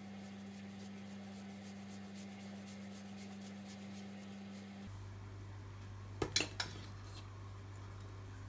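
Low steady hum with faint rustling ticks as wool yarn is wound around fingers. About six seconds in, three quick sharp clinks of a hard object knocking on a hard tabletop.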